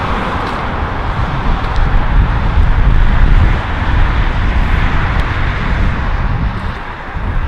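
Road traffic: cars passing on an asphalt road, their tyre noise swelling a little midway, with wind buffeting the microphone in a low, uneven rumble.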